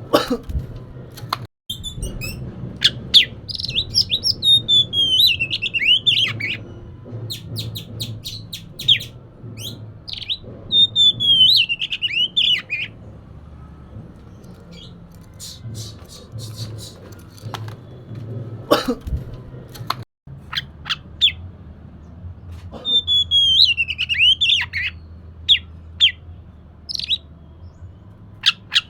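Oriental magpie-robin (kacer) singing a varied song of short sharp whistled notes and chips, with three long whistled phrases that slide downward in pitch, over a faint low hum.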